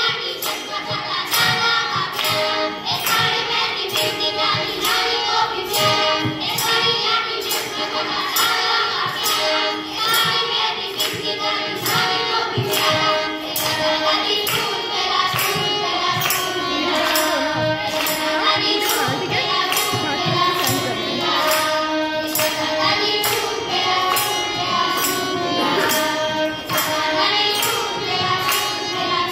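A group of children singing a song together through a microphone and PA, over a harmonium accompaniment and a steady jingling tambourine beat.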